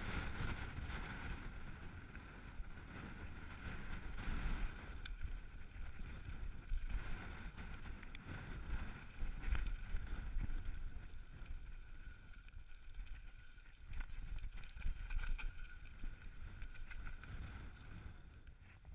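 Mountain bike riding fast down a rough gravel track: tyres running over loose stones with frequent sharp knocks and rattles from the bike over rocks, under steady low wind rumble on the microphone.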